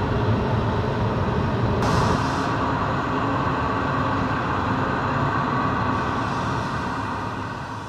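Steady roar of a glassworks reheating furnace (glory hole) burner, with a brief brighter hiss about two seconds in, fading out near the end.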